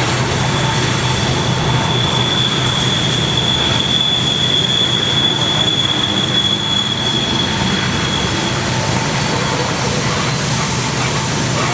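Loaded coal cars of a freight train rolling past with a steady rumble of wheels on rail. Over it runs a high, steady wheel squeal that fades out about eight seconds in.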